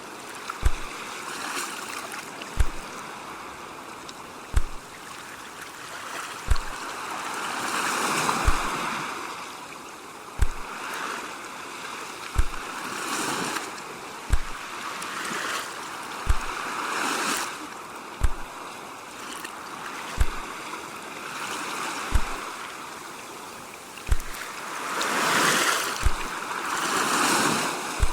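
Ocean waves washing ashore in slow, irregular swells, with a short, deep thump repeating steadily about every two seconds under them.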